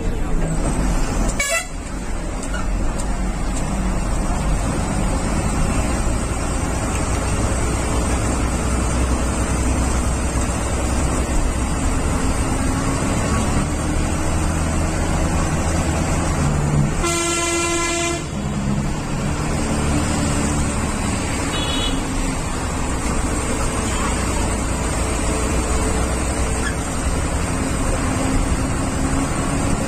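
Bus engine and road noise heard from inside the moving bus, a steady rumble. About seventeen seconds in, a vehicle horn sounds once for about a second; there is also a sharp click about a second and a half in.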